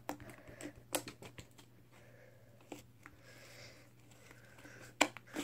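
Homemade fluffy slime being squished and pulled by hand, giving a few sharp clicking pops over a soft crackle, with the loudest pair of pops near the end.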